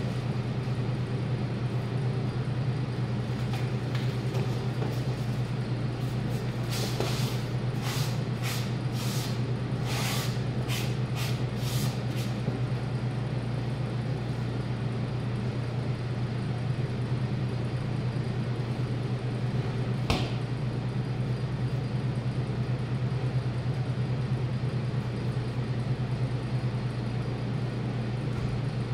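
Steady low machine hum throughout. About seven to twelve seconds in comes a run of short rustling strokes, and about twenty seconds in a single sharp click.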